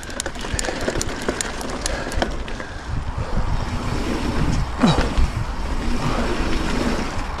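A Trek Fuel EX 7 mountain bike rolling fast over a sandy dirt trail: steady tyre and ground rumble with many sharp clicks and rattles from the bike, thickest in the first few seconds.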